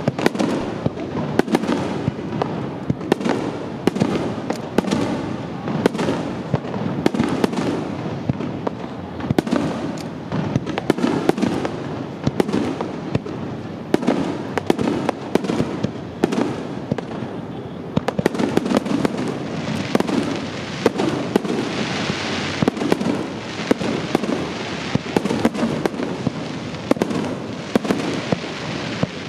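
Aerial fireworks shells bursting in rapid succession, a continuous barrage of booms and bangs. About three quarters of the way through, a stretch of hissing crackle joins the bursts.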